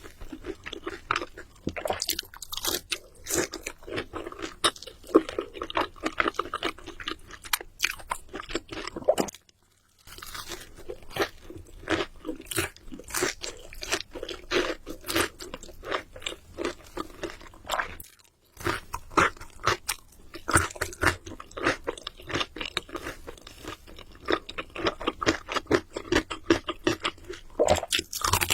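Close-miked crunching and chewing of crisp food, a dense run of irregular crunches. It breaks off twice in brief silences, about a third and two-thirds of the way through.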